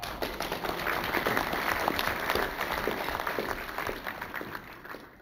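Audience applauding, with many hands clapping at once, dying away near the end.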